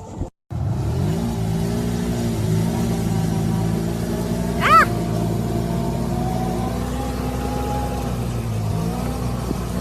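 A car engine running steadily after a brief cut, its pitch rising about a second in as it speeds up, then holding. A short, high, rising-and-falling sound near the middle is the loudest moment.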